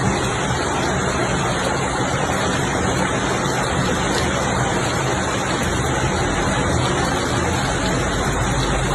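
Steady, even rushing noise of storm floodwater and rain.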